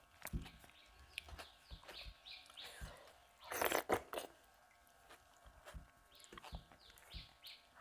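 Close-up wet eating sounds of rice and dal eaten by hand: fingers scraping a brass plate, lip smacks and clicks, and a louder slurp about halfway through as the fingers go into the mouth.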